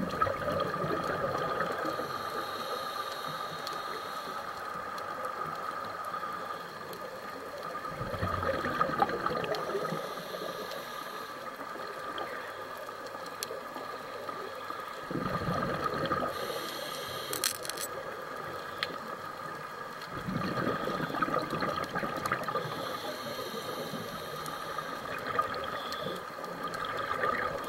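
Scuba diver breathing through a regulator underwater: bubbles rush out on each exhalation, with a fainter hiss from the regulator on each breath in, repeating every six to seven seconds. A steady tone runs underneath.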